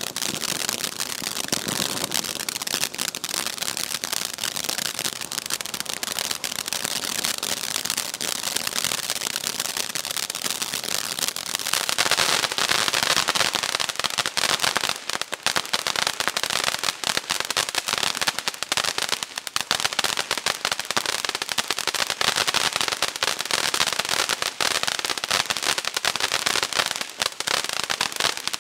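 Dominator Eco 'Diamonds & Emeralds' fountain firework burning: a dense, continuous crackle of sparks over a steady hiss. It gets louder about twelve seconds in.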